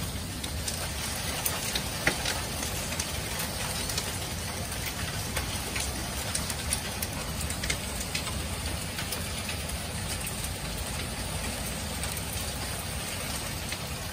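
Heavy rain mixed with hail pelting a wooden deck. A steady downpour runs throughout, with scattered sharp clicks of hailstones striking.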